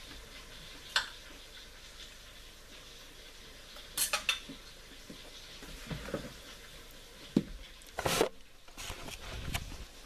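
A knife and fork clinking and scraping on a plate, a few separate clinks with a louder clatter about eight seconds in.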